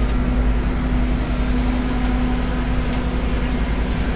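Airport apron shuttle bus running, heard from inside its crowded cabin: a steady engine rumble with a constant low hum.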